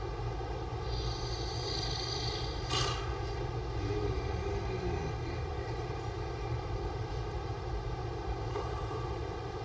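A man snoring with his mouth open, under a steady droning hum, with a single click about three seconds in.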